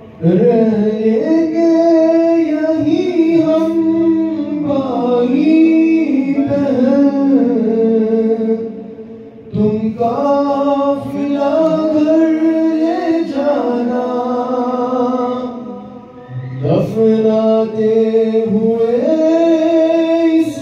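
A man chanting an Urdu noha (mourning lament), unaccompanied, into a microphone: long held phrases with bending pitch, each broken by a short pause, about nine and sixteen seconds in.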